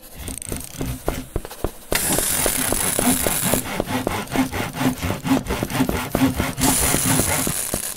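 Intro soundtrack of workshop tool sound effects: quick, regular scraping strokes like sawing wood, with a hissing layer that comes in about two seconds in and again near the end.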